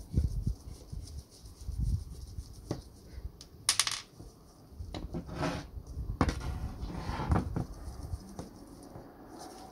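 Metal parts of an old hand drill being handled on a workbench: irregular clinks and knocks, with a few sharper metallic clicks among duller thumps.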